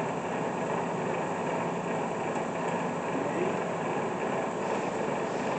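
Bridgeport Series II 4-horsepower vertical milling machine running steadily with its spindle turning.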